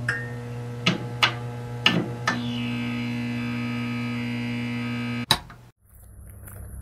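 Logo intro sound effect: a steady electric hum with a few sharp glitchy hits, then a held tone and a last hit about five seconds in, after which it cuts off. Faint outdoor sound follows near the end.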